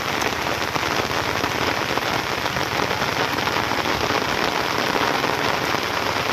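Steady rain falling, a dense even pattering of drops with no let-up.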